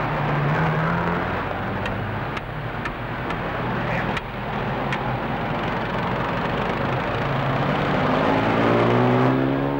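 Motor traffic running steadily, with a few sharp clicks in the middle; near the end one engine speeds up, its pitch rising.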